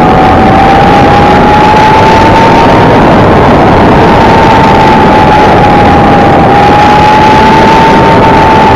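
A riding vehicle's motor gives a steady whine that drifts slowly up and down in pitch and dips briefly about six and a half seconds in. Loud wind and road rush run under it while the vehicle travels.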